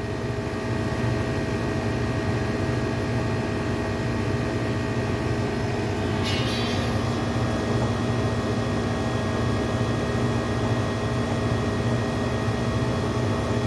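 R22 air-conditioning condensing unit running steadily, its compressor and condenser fan giving a constant hum with a few fixed tones. A short higher-pitched noise comes about six seconds in.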